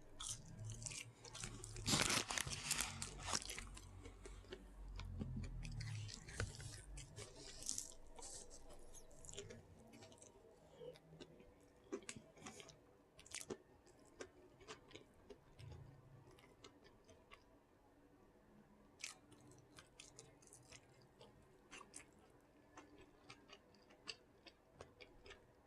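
A person with dentures chewing and biting Burger King chicken: a run of small sharp clicks and crackles, loudest for about a second and a half starting two seconds in, then sparser.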